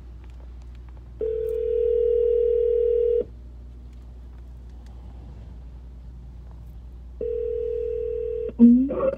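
A steady, flat tone sounds twice, first for about two seconds and then for just over a second, over the low steady rumble of a car on the move. A short rising vocal sound follows near the end.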